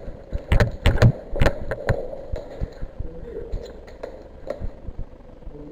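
A quick, irregular run of sharp knocks or clicks in the first two seconds, then a few fainter ones.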